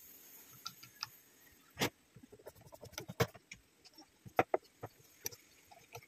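Scattered light clicks and knocks, the loudest about two seconds in, from handling a new washing machine water inlet solenoid valve and its plastic housing while fastening it with a screwdriver.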